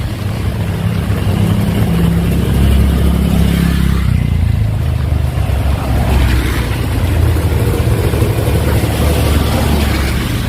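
Heavy rain falling steadily, with a loud, continuous low rumble underneath it.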